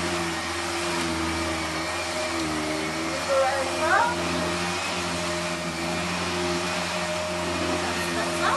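Household vacuum cleaner running steadily, its motor hum shifting slightly in pitch now and then as it is pushed around.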